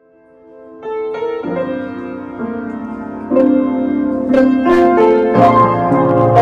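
Intro music: piano chords fading in, joined by a beat of sharp percussive hits about three seconds in and a bass line near the end.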